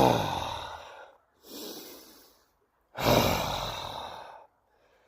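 A man taking slow, deep breaths: three long breaths, the first ending in a short sigh and the middle one quieter.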